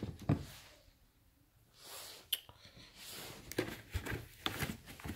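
Faint handling sounds from a pair of knit sneakers being moved about on their cardboard shoebox: a sharp click a little over two seconds in, then soft rustles and light taps near the end.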